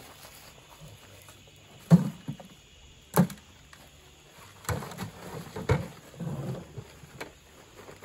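Irregular thuds and knocks of ear corn being grabbed from a wooden wagon and dropped into a sack, about six in all.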